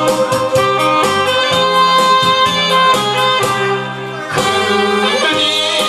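Instrumental backing music for a song, a melody line over a steady bass and beat, with a brief drop in loudness about four seconds in.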